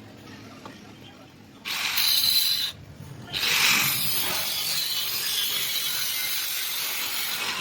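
Stick (arc) welding on thin steel square tube: a short burst of arc hiss and crackle, then, after a brief pause, a longer steady run of the arc as a bead is laid. Both start and stop abruptly.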